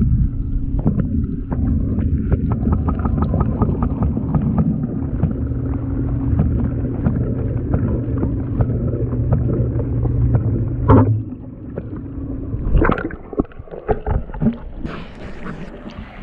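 Underwater sound in a fish pond: the steady low hum of the pond's water pumps carried through the water, with many small clicks and bubbling. The hum cuts off about eleven seconds in, followed by a couple of sharp knocks and a quieter, uneven stretch of open air.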